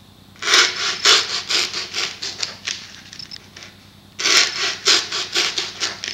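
Hacksaw cutting through a polyethylene foam pool noodle with quick back-and-forth strokes, about three a second. There are two runs of strokes with a short pause about three seconds in.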